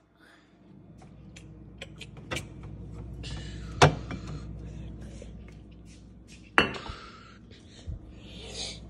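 Glass bottles and plastic containers clinking and knocking as they are moved around on refrigerator shelves, with two sharper knocks about four and six and a half seconds in, over a steady low hum.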